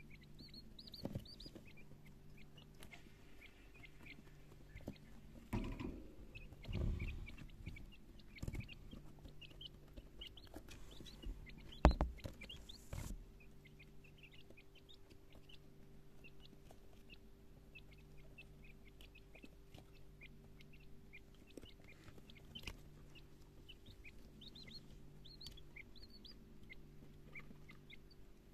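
Quail chicks peeping, many short high cheeps scattered throughout, over a steady low hum. A few thumps come about six seconds in, and a single sharp knock, the loudest sound, about twelve seconds in.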